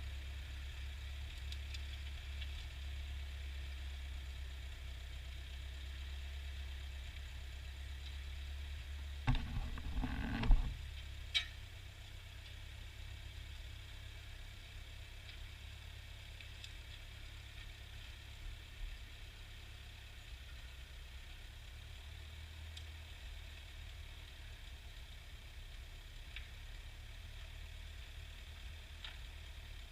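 Ford farm tractor engine running steadily with a low hum. About nine seconds in there is a short burst of clatter, then a single sharp click a second later.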